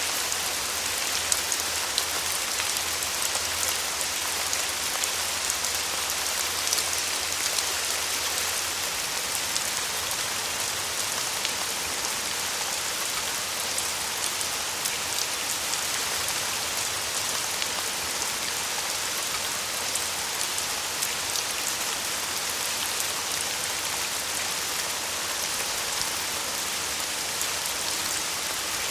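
Steady rain falling, an even hiss with many small drop taps scattered through it. A faint low hum sits under it for the first nine seconds or so.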